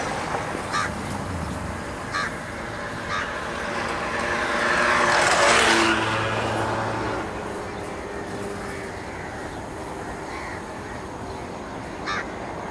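Outdoor road traffic noise, with a vehicle passing that rises and fades about halfway through. A few short bird calls sound now and then, one near the end.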